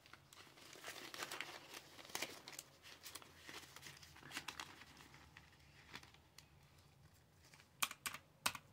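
Faint rustling and crinkling of paper bills and binder pockets being handled while cash is counted, with two sharper clicks near the end.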